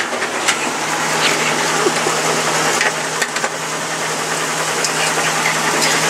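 A machine running steadily with a constant low hum, with a few light clicks over it.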